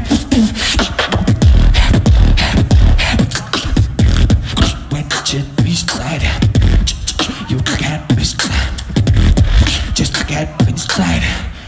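Solo beatboxing into a microphone: a fast, unbroken run of vocal drum hits and clicks over deep bass tones, breaking off just before the end.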